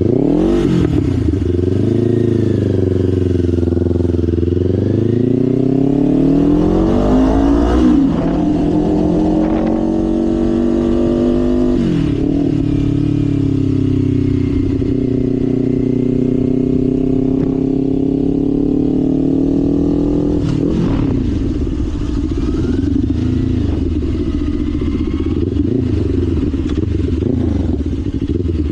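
Kawasaki Ninja 500's parallel-twin engine under way: the engine note climbs and falls with the throttle, drops sharply about 12 seconds in and again about 20 seconds in as gears change, and holds steady at cruising speed in between.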